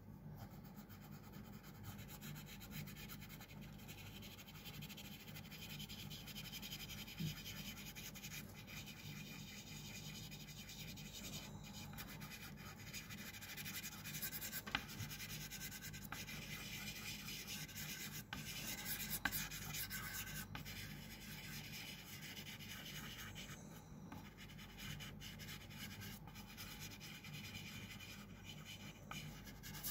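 A black drawing stick scratching and rubbing across textured paper in short, continuous strokes, faint, with a few small taps, over a steady low hum.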